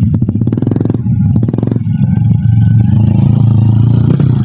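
Small motorcycle engine running steadily at low revs as the bike rolls downhill loaded with oil palm fruit bunches, with some clatter from the laden rack.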